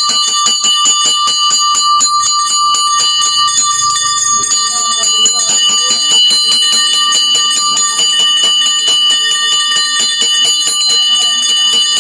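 Puja bell rung rapidly and without a break, quick even strokes over a steady ring of several bright pitches, as is done through the aarti.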